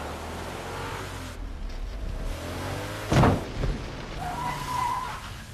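Cars on a rain-soaked street: a low engine rumble with tyre hiss on wet asphalt as cars swerve. A loud impact hits about three seconds in and rings on briefly, and a short held tone sounds near the end.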